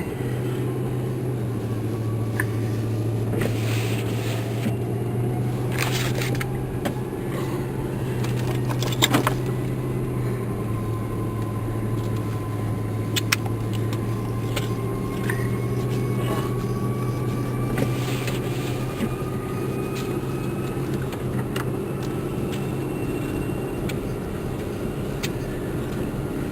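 Car engine and road noise heard from inside the cabin while driving: a steady low hum, with scattered clicks and knocks and a sharper knock about nine seconds in.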